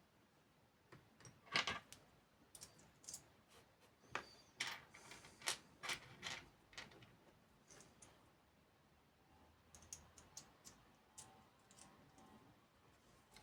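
Faint, irregular clicks and taps of small repair tools and parts handled on an iPhone 8 Plus during disassembly, the loudest about a second and a half in and in a cluster in the middle.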